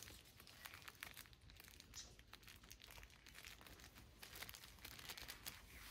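Faint crinkling and rustling as the tie tape and wrapping are pulled off an air layer's root ball, in short irregular crackles.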